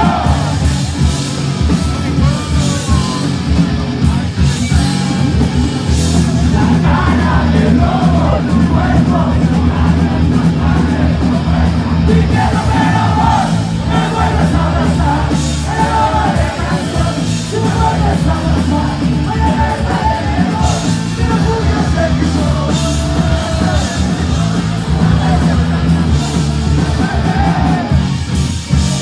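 Punk rock band playing live at full volume, with guitar, drums and yelled singing, heard from within the crowd.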